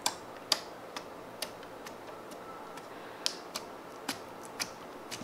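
Clear jelly slime putty being poked and pressed with fingertips, giving about a dozen small, sharp clicks and pops at irregular intervals.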